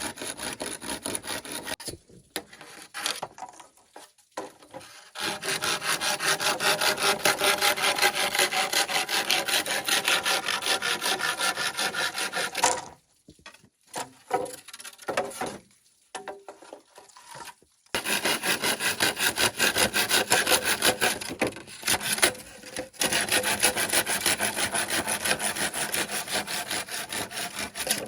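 Bamboo being sawn by hand: two long runs of rapid, even back-and-forth strokes, with a pause and a few short strokes between them.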